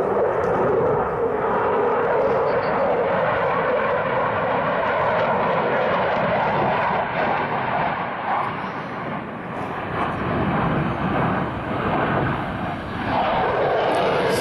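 Jet noise from a Eurofighter Typhoon's two Eurojet EJ200 turbofans as the fighter flies its display, loud and rushing, easing slightly about ten seconds in and building again near the end.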